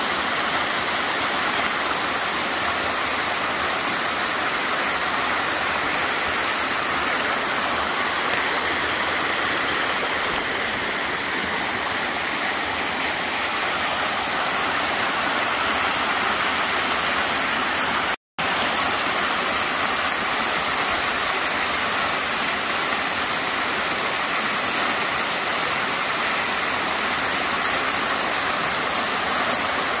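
Small waterfall pouring over rocks and splashing into a pool: a steady, even rush of water, cut off for a split second a little past the middle.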